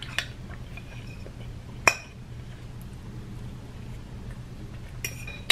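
A metal fork clinks against a plate four times. The clinks are short and sharp, and the loudest comes about two seconds in. A low steady hum runs underneath.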